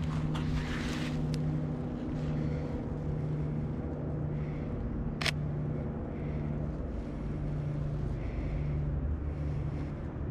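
A steady low motor hum that swells and dips slightly. About five seconds in comes a single sharp camera shutter click.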